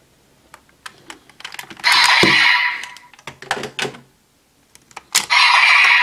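Plastic clicks and rattles from a toy transformation belt with a rider Core ID being swapped. Two loud hissing bursts come about two seconds in and about five seconds in.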